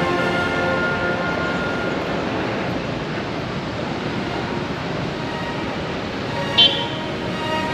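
Steady traffic noise from a street, with background music fading out over the first two seconds and one brief high-pitched sound about six and a half seconds in.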